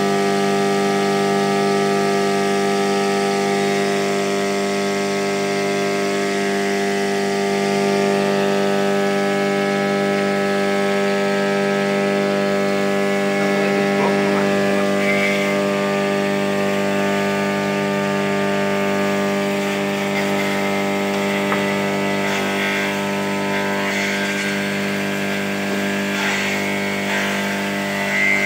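Steady electric hum of a homemade grass chopper running, driven by a salvaged Sanyo water-pump motor turning the cutting blade.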